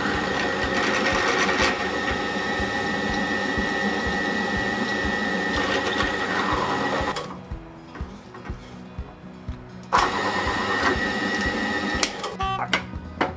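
Pedestal drill press running with its bit cutting into a workpiece held in a machine vise, a steady high squeal over the motor, with no lubricant on the cut. It stops about seven seconds in, runs again for about two seconds near ten seconds in, and ends with a few sharp clicks.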